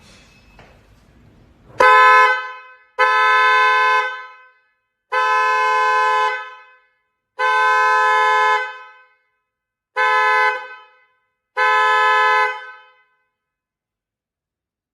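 A 12-volt vehicle horn sounding six separate blasts, each about a second long and at the same steady, buzzy pitch. The fifth blast is shorter than the others.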